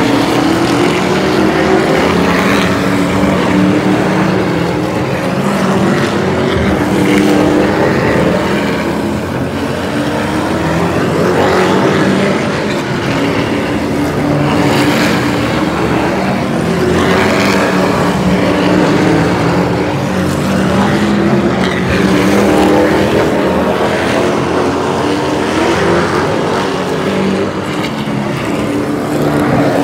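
Super truck race engines running at race speed around the oval, several trucks at once, the sound swelling and fading again and again as they pass by.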